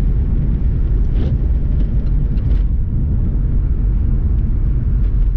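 Holden VP Commodore's 5-litre V8 running steadily while driving, heard as a constant low rumble with road noise.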